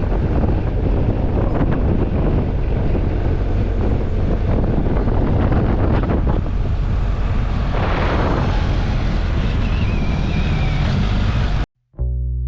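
Wind rushing hard over the microphone of a moving motorcycle, over a steady low rumble. It cuts off suddenly near the end, and guitar music begins.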